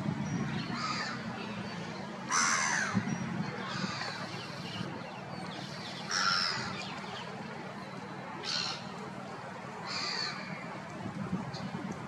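Black-headed gulls calling: about seven short calls spaced a second or two apart, the loudest about two and a half and six seconds in, over a low steady rumble.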